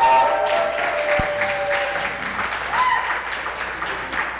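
Audience applauding and cheering. Long held whoops ride over the clapping in the first two seconds, and another rising whoop comes about three seconds in.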